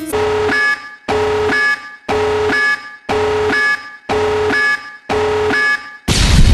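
An alarm-like buzzing beep sound effect repeated six times, about one a second, each beep lasting most of a second, then cut off by a loud blast near the end.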